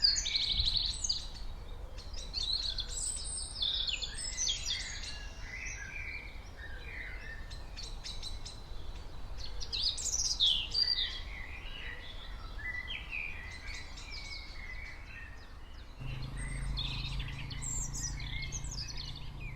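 Several small birds chirping and singing in quick overlapping calls over a low steady rumble. About three-quarters of the way through, a low steady hum comes in and stays to the end.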